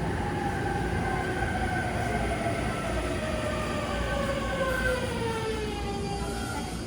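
Electric commuter train slowing as it comes into a station: the whine of its inverter-driven traction motors falls steadily in pitch over the rumble of the wheels and running gear.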